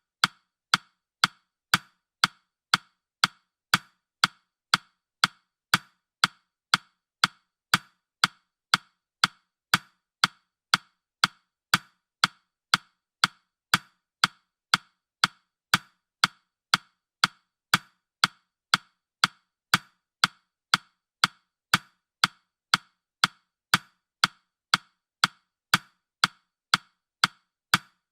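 Countdown timer's ticking sound effect: sharp, even, clock-like ticks at about two a second, each dying away quickly.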